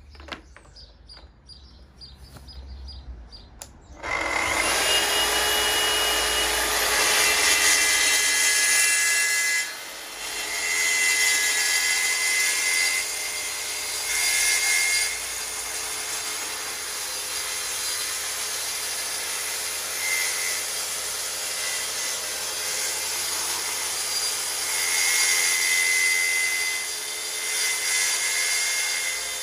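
Track saw running along a Festool guide rail, ripping lengthwise down a board. It starts about four seconds in after a few handling clicks. The motor whine and cutting noise rise and fall as the blade is pushed along, with a brief dip about ten seconds in.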